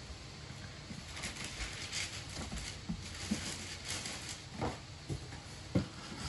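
A cat's paws scrabbling and tapping on a cardboard box: faint scratchy rustling, then a handful of short dull knocks in the second half, the last one the loudest.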